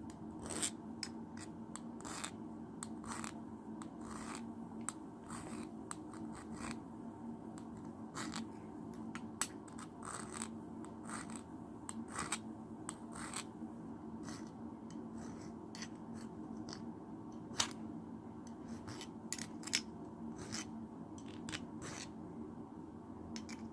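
Hand file rasping on the point of a throwing spike: short, irregular filing strokes, about one a second with pauses, over a steady low hum.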